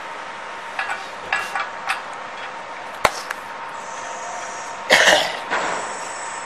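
Light metallic clinks of bolts and parts being handled against a steel machine frame during assembly, with a sharp knock about three seconds in and a loud short rasping burst about five seconds in.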